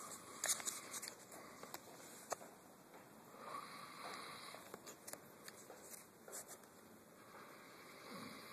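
A man snoring faintly, with a rasping breath about every three and a half seconds and a few small clicks in between.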